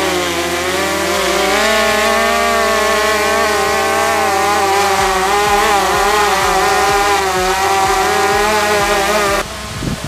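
Quadcopter drone's electric motors and propellers running up close: a steady, buzzing whine of several tones that wobble slightly in pitch, cutting off suddenly near the end.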